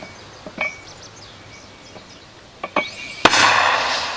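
An 82 mm mortar shot: a couple of light clinks as the round is loaded, then one loud bang about three seconds in, followed by a rushing noise that dies away.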